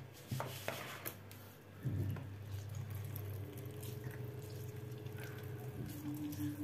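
Salted grated zucchini squeezed by hand, its juice dripping and trickling into a plastic bowl, over a steady low hum.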